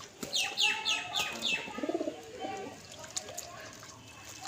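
Small birds chirping, a quick run of about five high falling notes, followed about two seconds in by a low cooing call from a dove.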